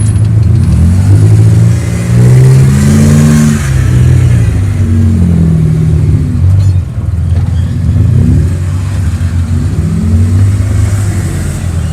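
Engine sound effect for an RC crawler truck, an engine note revving up and easing off several times.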